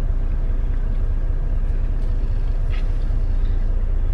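Steady low rumble of a semi truck's diesel engine running, heard from inside the cab.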